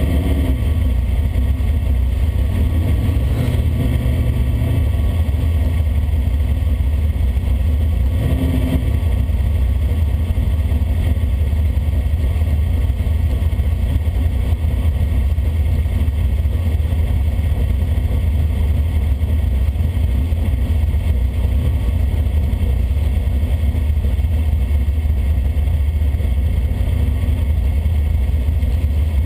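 1965 Plymouth Belvedere drag car's engine idling as the car rolls slowly, heard from inside the cabin. A steady low engine sound that holds even throughout.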